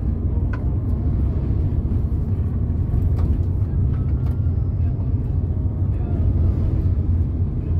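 Steady low rumble of a car's engine and tyres heard from inside the cabin while driving, with a few faint ticks over it.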